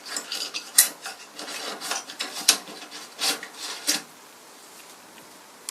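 A hand tool scraping and rubbing at the old finish on a wooden piece of furniture while it is being stripped, in several short rasping strokes that stop about four seconds in.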